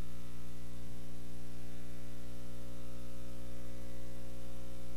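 Steady electrical mains hum with many overtones over a constant hiss, from the recording or sound system.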